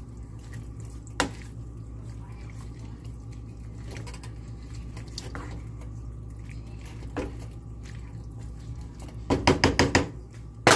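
Wooden spoon stirring cabbage soup in a metal pot: soft scraping and squelching, over a steady low hum. About nine seconds in comes a quick run of about six sharp knocks, the spoon tapped against the pot's rim.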